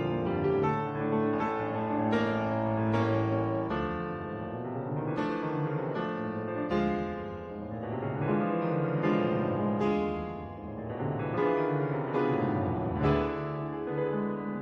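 Solo piano music, a steady run of notes and chords: old silent-film accompaniment.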